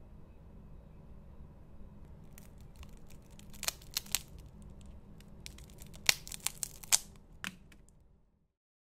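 A thin, crisp pressed-octopus cracker (tako senbei) crackling and snapping as it is broken apart by hand: a run of sharp, irregular cracks, loudest about four seconds in and again between six and seven and a half seconds, then the sound fades out.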